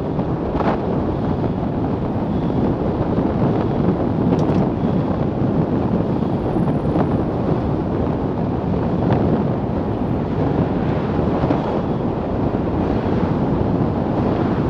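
Steady rush of wind buffeting the microphone on the nose of a roofless Milan Mk4 velomobile moving at about 45 km/h, a constant low rumble with a few faint ticks.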